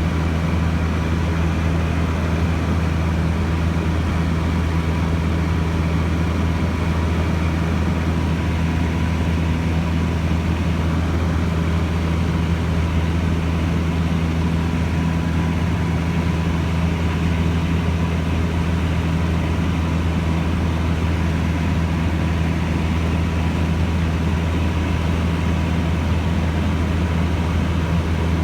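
Cessna 150J's Continental O-200 four-cylinder engine and propeller running with a steady, unchanging drone.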